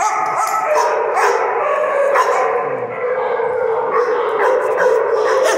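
A group of dogs barking continuously, many voices overlapping in a steady din.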